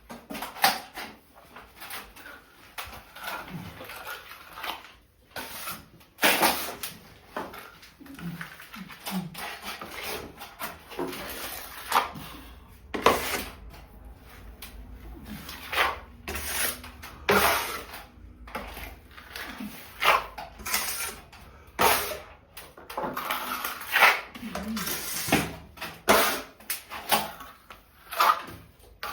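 Irregular knocks, scrapes and clatter of hand work, spaced unevenly with a few louder hits.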